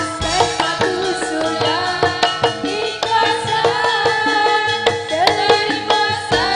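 Live oklik ensemble playing an upbeat dance tune: a steady rhythm of bamboo kentongan slit drums and hand drum, with a woman singing the melody over it.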